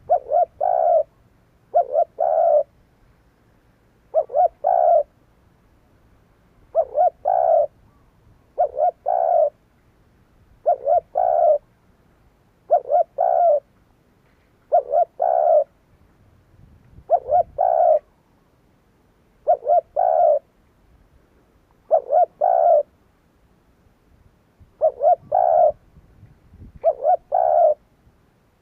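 Spotted dove cooing: a short phrase of a few quick coos, repeated steadily about once every two seconds.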